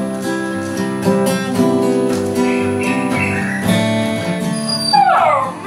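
Steel-string acoustic guitar strummed and picked in an instrumental song intro, chords ringing on steadily. Near the end comes a brief sound that slides down in pitch, louder than the guitar.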